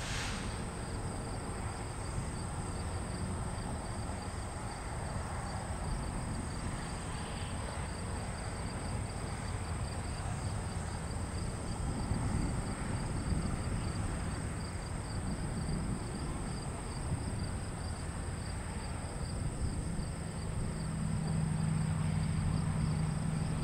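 Outdoor ambience of insects chirping in a steady pulsing rhythm over a low rumble, with a low hum swelling in near the end.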